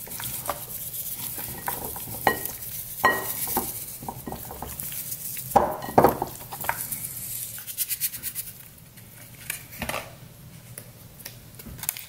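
Raw beef chuck ribs being turned and rubbed by hand in a glass mixing bowl: scattered knocks and clinks of meat and knuckles against the glass, with a run of quick ticks from a seasoning packet being shaken over the meat near the end.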